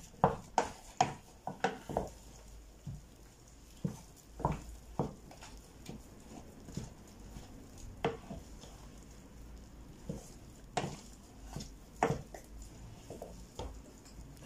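Wooden spoon knocking and scraping against a stainless steel saucepan while turning a stiff pounded yam dough. The knocks come quickly, about three a second, for the first two seconds, then fall into scattered single knocks.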